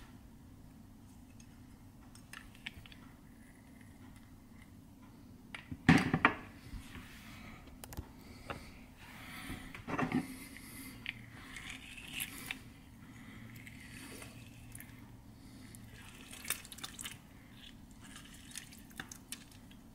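Limes pressed in a hand-held metal lime squeezer: squelching, with juice dripping into a plastic bowl. Two sharp knocks, the louder about six seconds in and another about ten seconds in, with small clicks between.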